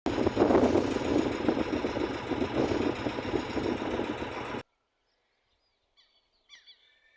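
Strong gusty wind buffeting the microphone, a loud, rough rumbling that cuts off abruptly about four and a half seconds in. Then near quiet with a few faint bird chirps near the end.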